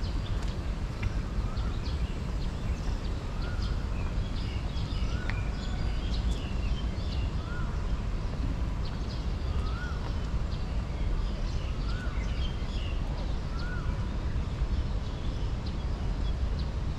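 Birds chirping and calling, with one short arched call repeated every two seconds or so, over a steady low rumble.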